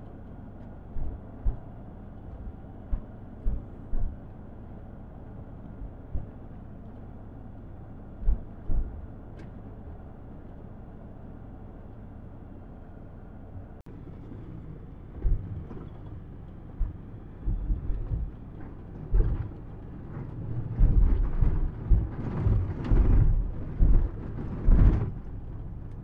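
Ford Ranger pickup driving over a rough gravel track: a steady low rumble from the tyres and running gear, with scattered thumps and jolts from bumps that come thick and heavy in the last several seconds.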